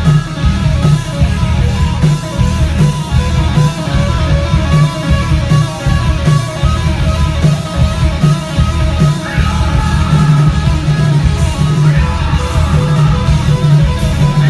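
A heavy metal band playing live: distorted electric guitars, bass and drums at full volume, with a thick, pulsing low end.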